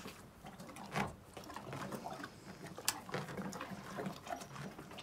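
A horse chewing and crunching carrot and apple treats as it noses around a plate, in an irregular run of crunches and small clicks, with one sharper click about three seconds in.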